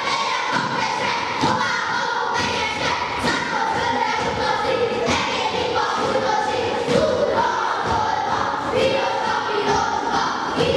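A group of children singing a Hungarian folk song together, with scattered thuds of the dancers' feet on the floor.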